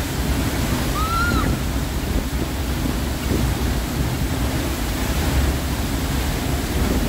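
Waterfall pouring into its plunge pool: a steady, low rush of falling water.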